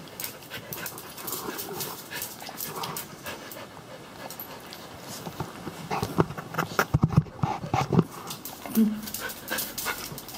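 American Staffordshire terrier panting, with a run of sharp clicks and knocks around it, busiest about six to eight seconds in.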